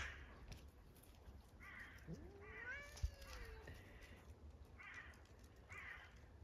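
A cat meowing once, a long call that rises and then falls in pitch, starting about two seconds in. A few short harsh calls come before and after it.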